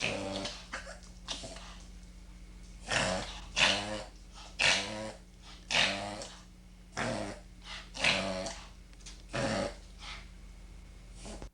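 Dog reverse sneezing: a run of loud, rapid inhalations drawn in through the nose, about one a second.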